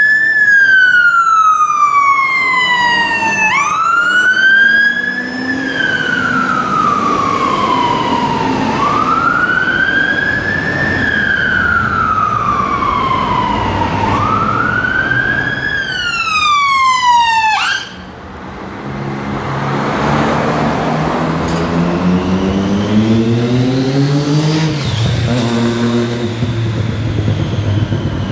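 Fire engine siren on wail, rising quickly and falling slowly about every five seconds, until it cuts off abruptly. Then traffic noise, with a vehicle engine climbing in pitch as it accelerates, dropping at a gear change and climbing again.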